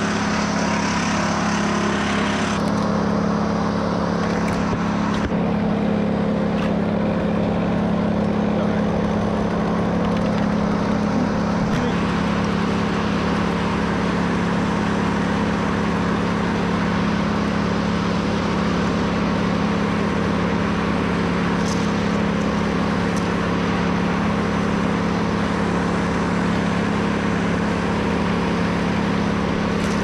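An engine running steadily at a constant speed, its pitch not changing.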